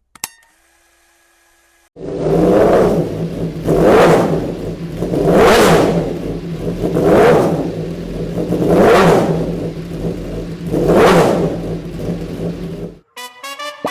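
A motor running with a steady hum, surging and easing in regular pulses about every second and a half, seven times, then cutting off.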